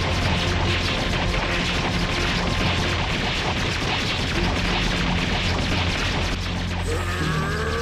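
Dramatic background music with a steady bass line under dense crashing and booming fight sound effects. About seven seconds in, a rising tone with several layers begins.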